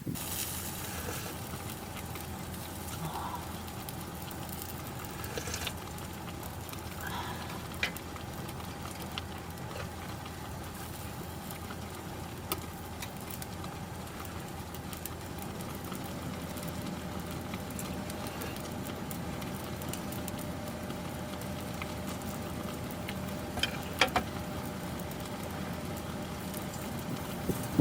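Steady low mechanical hum with a faint steady tone, broken by a few sharp clicks and knocks.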